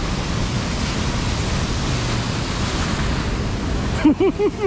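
Steady rushing of a waterfall and river in the gorge below. Near the end a quick run of short rising-and-falling pitched sounds cuts in over it.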